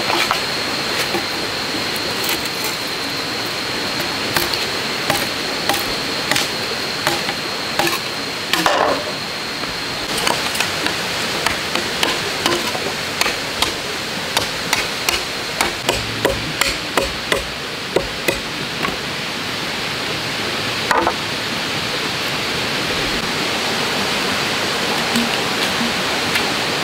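Machete striking green bamboo: a series of sharp knocks, coming in a regular run of about three strikes every two seconds through the middle, over a steady background rush.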